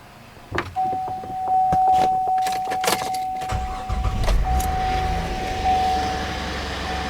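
Keys jangling and clicking, then about three and a half seconds in the 2007 GMC Acadia's 3.6-litre V6 starts and settles into a steady idle after a spark plug change. A steady high tone runs through from about a second in.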